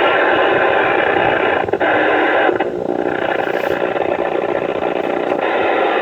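Loud, steady radio static, a hiss of noise with a narrow, muffled sound like a radio channel, dipping briefly a few times.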